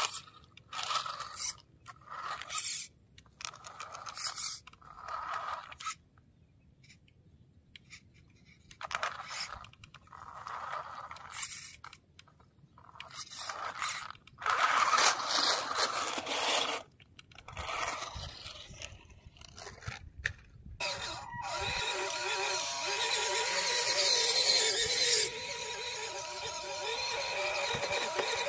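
Small RC cars' electric motors and gears whining in repeated short throttle bursts, with the tyres scrabbling and scraping over dirt. In the last part the motor whine turns steadier and continuous.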